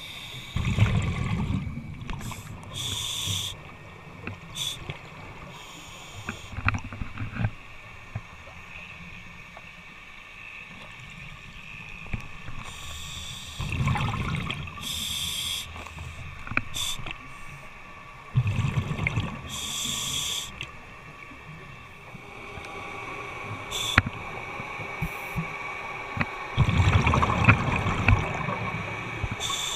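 Scuba diver breathing through a regulator: short hissing inhalations alternating with low, gurgling bursts of exhaled bubbles, several breaths in a row.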